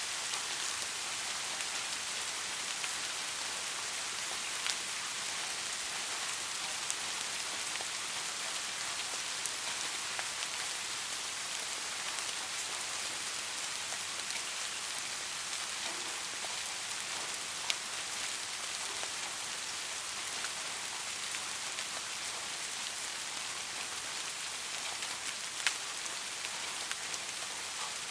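Steady rain falling on a surface, an even hiss with a few louder single drops ticking through it.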